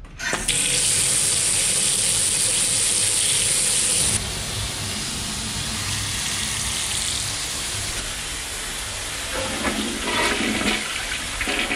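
Water running from household fixtures opened to drain the pipes after the supply was shut off: a steady rushing from a bathtub spout, which drops a step about four seconds in to a bathroom sink tap running into the basin, then a toilet flushing with a gurgling swirl near the end.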